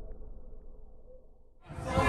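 Muffled music fading away, then near the end a sudden cut to loud crowd noise with music.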